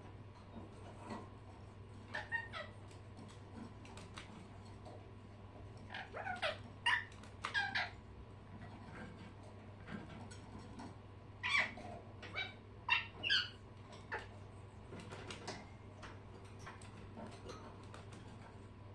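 Pet birds giving short, sharp chirping calls in two bunches, one about six seconds in and one about eleven seconds in, with a few softer chirps in between. A steady low hum runs underneath.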